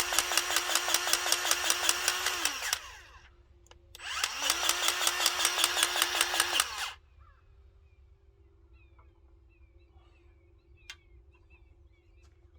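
Ryobi cordless electric grease gun running in two bursts, its motor spinning up and winding down each time with a rapid, even pulsing of the pump as it pushes grease into a fitting; the first burst stops near 3 s in and the second runs for about three seconds. Afterwards only faint bird chirps and a few light clicks.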